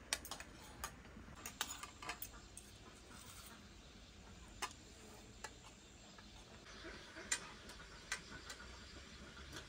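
Spoons and forks clinking and scraping on plates as people eat, in scattered sharp clicks at irregular spacing, thickest in the first couple of seconds.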